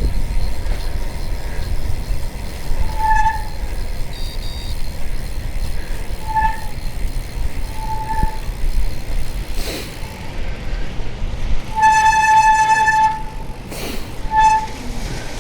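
Steady low road rumble inside a moving vehicle, with a single-pitched horn sounding several short toots and one longer blast of about a second and a half near the end.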